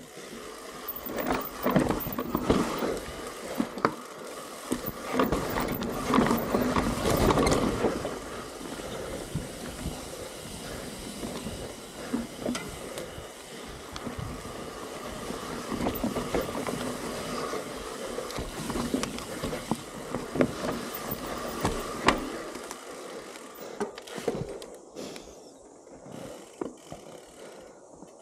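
Mountain bike riding down a dirt trail: steady tyre noise with frequent rattling knocks as the bike runs over bumps, busiest at the start and easing off near the end.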